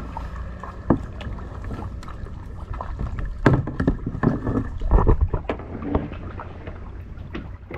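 Plastic kayak being paddled slowly: paddle splashes and several knocks against the hull, the most between about three and five seconds in, over a low wind rumble on the microphone.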